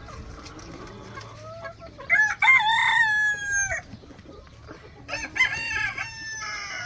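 A rooster crowing twice, the first crow about two seconds in and the second about five seconds in, each a long call that drops in pitch at its end.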